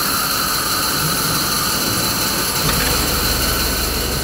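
Large band saw running and cutting through a wooden board, a steady machine noise with a deeper hum joining about two and a half seconds in.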